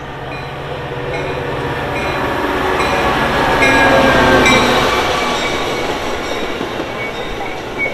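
Metra F40PHM-3 diesel locomotive and its bilevel passenger cars passing close by, growing louder to a peak about four seconds in as the locomotive goes past, then easing into the rumble of the cars rolling by with short high wheel squeals.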